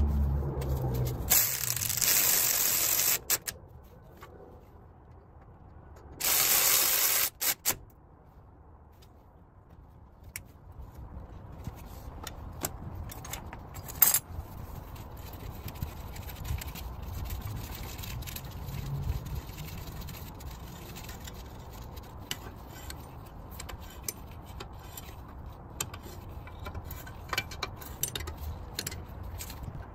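Two bursts of hissing spray, one about two seconds long and one just over a second. After them come scattered light clinks, rattles and scrapes of tools on metal, with one sharp click about fourteen seconds in.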